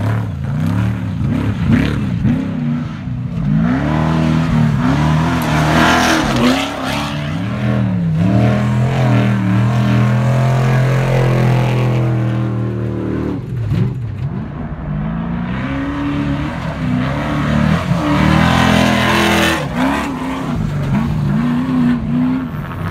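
Off-road desert race trucks passing one after another through a sandy turn, engines revving hard with the pitch swinging up and down as they power through the loose sand. The engine sound dips briefly between trucks about halfway through.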